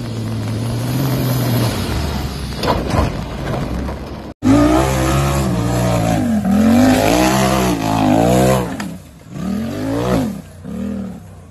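An SUV's engine running with a noisy rush of tyres on loose dirt, then, after a sudden break, an off-road tube-chassis buggy's engine revved hard, pitch rising and falling several times as it charges up a dirt hill. Near the end the engine drops off, followed by a couple of short revs.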